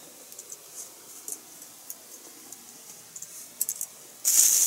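Faint clicks and taps of small tools and parts being handled on a desk while a lost paintbrush is searched for, with a few sharper clicks near the end, then a sudden loud hissing rustle.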